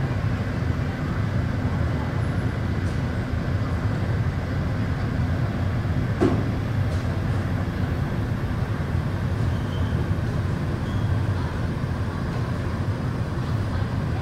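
Artificial tornado machine running: its fans drawing air in a steady rush with a low hum underneath. There is a single brief click about six seconds in.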